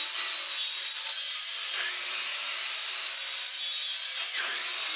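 Kobalt sliding compound miter saw running and cutting through a pine board, a steady loud whine of blade and wood.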